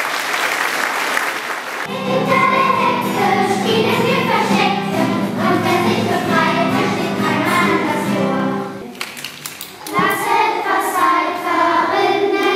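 Applause, then a children's choir singing with guitar accompaniment. The singing breaks off briefly about nine seconds in and starts again.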